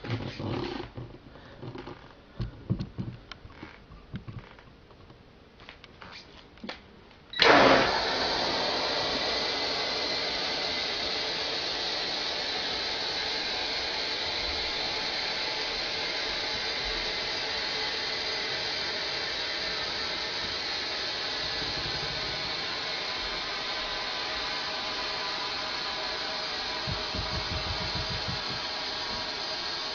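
Compressed air from a tank at about 105 psi bursting out through a sprinkler valve that an alarm clock has triggered. A few faint clicks, then a sudden onset about seven seconds in of a loud, steady hiss with a thin whistle in it, which keeps up and eases only slightly as the tank drains.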